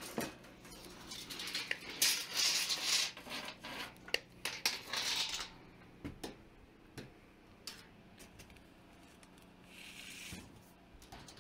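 Handling noises as a steel tape measure is pulled out and held up against a tent: scraping and rustling for a few seconds, then scattered clicks and a brief hiss.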